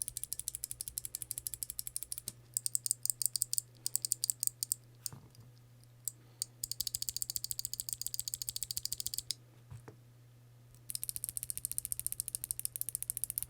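Kailh Box mechanical keyboard switches (Box Owl v2 and Box Jade) clicking as they are pressed in rapid runs. There are five bursts of many quick clicks with short pauses between them.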